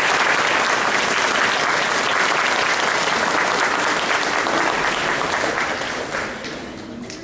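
Audience clapping, a steady round of applause that dies away about six seconds in.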